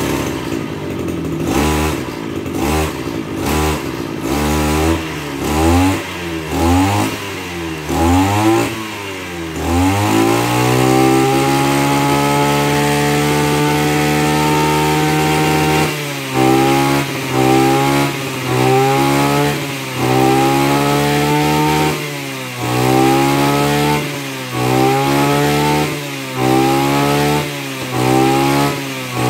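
Maruyama MKF330 brush cutter's 33 cc two-stroke engine (38 mm bore) being revved: quick throttle blips about once a second, then held at full throttle for about six seconds from around ten seconds in, then blipped again and again, dropping back toward idle between blips.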